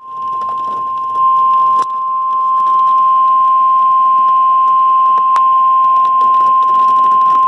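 NOAA Weather Radio warning alarm tone: a single steady, high-pitched 1050 Hz tone from a weather radio receiver's speaker over faint static. It gets louder about a second in, with two faint clicks. The tone signals that a warning broadcast is about to be read.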